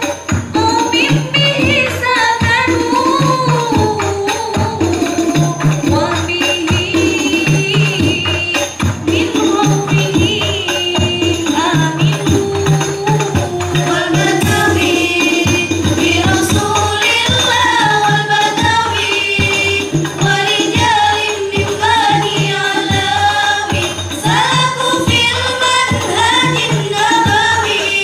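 Banjari devotional music: several women's voices singing a melody in unison, over hand-played rebana frame drums with a deep drum beating a pattern that repeats about every second and a half.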